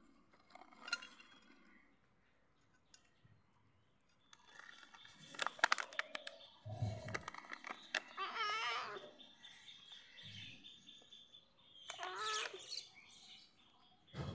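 A cat eating wet food from a metal bowl while a food pouch is squeezed and handled, with scattered clicks and rustles. Two short wavering chirping calls sound, one about halfway and one near the end.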